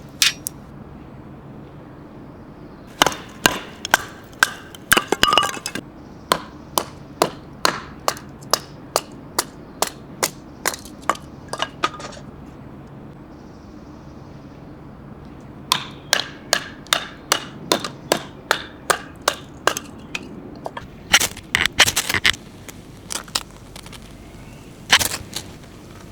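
Runs of sharp, evenly spaced knocks, about two a second, with pauses between the runs.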